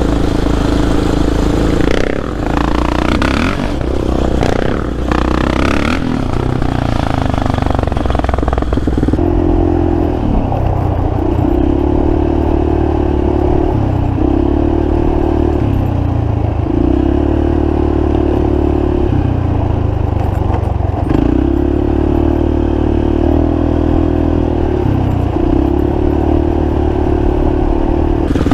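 Quad (ATV) engine under riding load, throttled up and eased off every couple of seconds. For the first several seconds a rough rattling clatter runs over the engine, then fades, leaving the engine's rising and falling drone.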